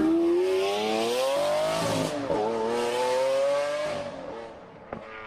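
A car engine revving: its pitch climbs steadily, drops briefly, climbs again, then fades out, with a hiss of rushing air over it.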